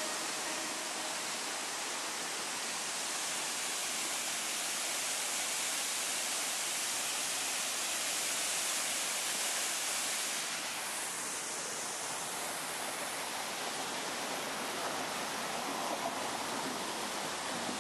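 Waterfall pouring down a rock face: a steady, even rush of falling water, briefly duller about eleven seconds in.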